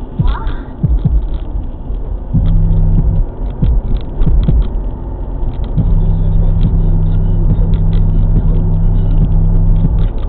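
Car stereo playing a rap track inside the car's cabin: long, heavy bass notes that come and go in blocks, with sharp drum hits, over road noise.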